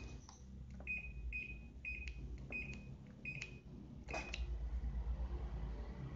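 Washing machine control panel beeping as its buttons are pressed: about seven short, high beeps, each with a click, in the first four seconds, over the machine's steady low hum.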